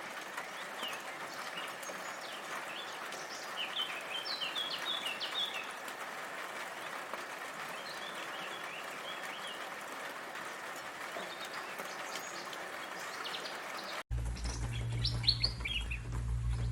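Songbirds chirping in short quick phrases, with a bunched flurry about four seconds in, over a steady hiss of falling rain. About 14 seconds in the sound cuts abruptly to another recording, where a low steady hum sits under a few more chirps.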